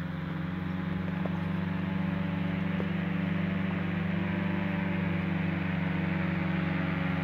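Buckeye powered parachute's engine and pusher propeller droning steadily in flight, growing slightly louder as it approaches.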